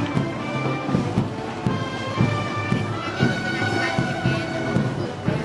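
Festival band music with held wind and brass notes over a steady drum beat, about two beats a second.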